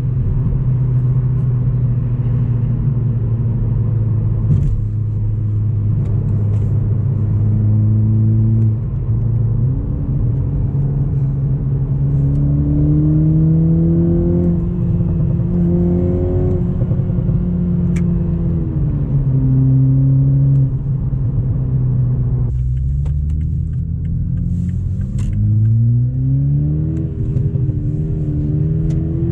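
A GR Supra's 2.0-litre turbocharged four-cylinder engine running through an FI Valvetronic aftermarket exhaust while driving, heard from inside the cabin. It holds steady, then rises and falls in pitch as the car accelerates and shifts. It drops sharply about two-thirds through, then the revs climb again near the end.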